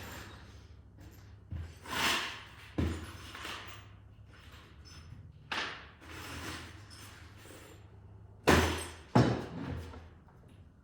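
Irregular knocks and thumps from hammering and shifting wooden wall framing, with scraping and rustling between the blows. The two loudest strikes come close together near the end.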